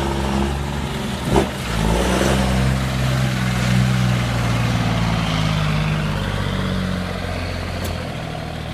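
Iveco truck's turbo diesel engine running steadily under power, its note easing slightly near the end. A short knock about a second and a half in.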